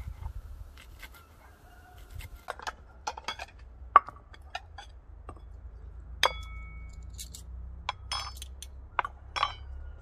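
A knife tapping on a wooden chopping board, then white ceramic soup bowls clinking as they are set down on the board. One sharp clink about six seconds in rings on briefly, and several more clinks come near the end.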